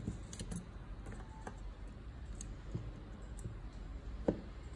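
Light, sparse clicks and taps of steel tweezers and a digital caliper being handled while tiny gemstones are set between the caliper jaws, with one sharper click about four seconds in.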